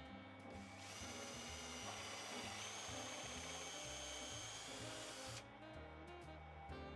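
Background music, with a power drill running for about four and a half seconds from about a second in, pre-drilling holes in a wooden board.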